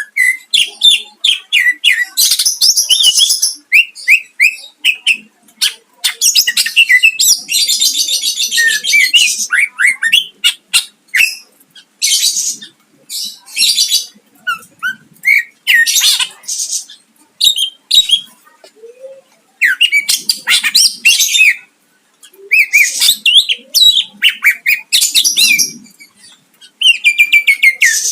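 Cucak ijo (green leafbird) singing loudly: fast repeated notes and trills mixed with harsh rapid bursts, the 'tembakan' shots, in phrases broken by short pauses.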